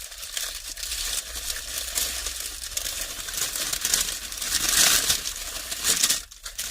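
Food wrapping crinkling and rustling as a takeaway lamb wrap is handled and opened, loudest about five seconds in.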